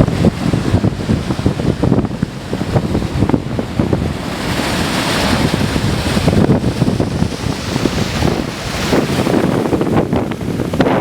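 Strong wind buffeting the microphone, an uneven low rumble under a steady rushing hiss that swells about halfway through.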